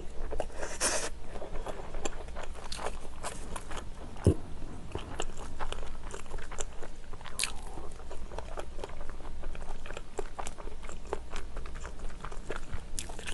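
A person chewing and biting food close to the microphone, with frequent crunches and small wet mouth clicks.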